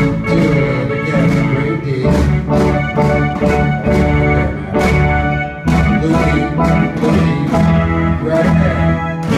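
A children's rock band playing live: a drum kit keeps a steady beat with cymbal crashes under electric guitar and keyboard.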